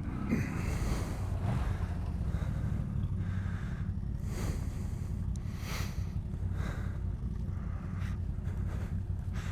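Single-cylinder dual-sport motorcycle engine idling with a low steady rumble, with repeated breathy hissing on the microphone every second or so.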